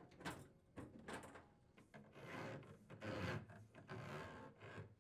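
Dishwasher drain hose being pulled through a hole in the wooden cabinet wall, rubbing and scraping against the edge in four strokes of about half a second each. A few light knocks come first.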